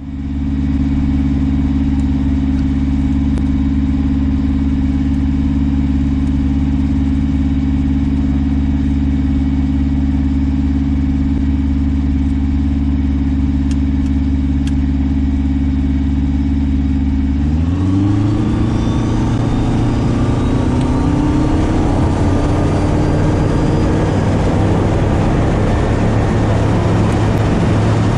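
Kitfox light aircraft's engine and propeller running steadily at low power, heard from the cockpit. About two-thirds of the way through, the pitch rises as the throttle is opened to full power, and the sound turns rougher as the plane rolls across the grass strip for takeoff.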